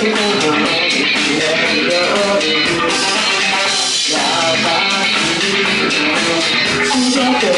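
Live singing into a microphone over loud, steady rock-style backing music with guitar.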